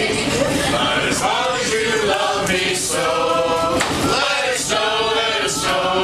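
A group of people singing a Christmas carol together, with long held notes.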